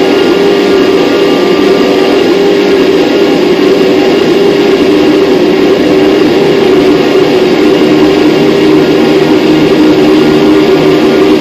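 Loud, steady noise-drone music played live: layered sustained tones over a thick wash of noise, holding without a break.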